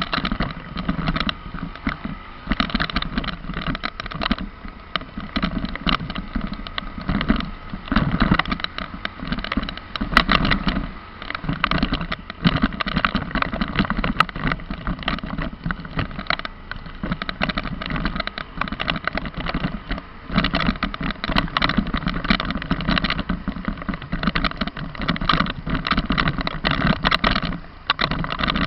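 A vehicle driving over a rough, unpaved road, with constant rattling and knocking from the bumps over the engine and road noise.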